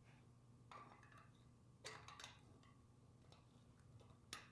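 Faint metal clicks and scrapes of snap ring pliers and a large snap ring being worked into the bore of a C5 Corvette torque tube housing, the sharpest click near the end, over a low steady hum.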